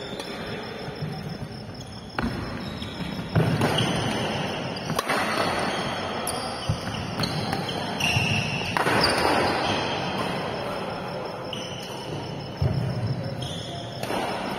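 Doubles badminton rally in a large echoing hall: rackets hitting the shuttlecock and players' feet thumping on the court, several sharp hits spread through.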